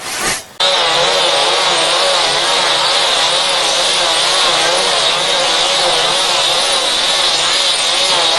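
Digitally distorted, many-layered audio effect applied to an intro jingle. About half a second in, a short snatch of music cuts off and a loud, dense, steady buzzing begins, made of many wobbling pitches stacked together.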